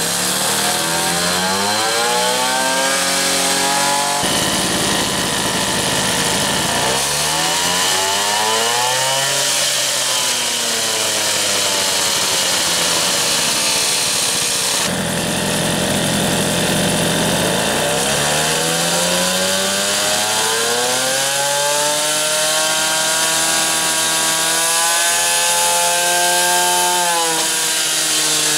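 Motobecane moped's single-cylinder two-stroke engine, fitted with an expansion-chamber exhaust, revved up and down on the stand: it climbs and drops back about three times, holding high revs for several seconds near the end. The engine is being run at varied revs to break in a new cylinder kit.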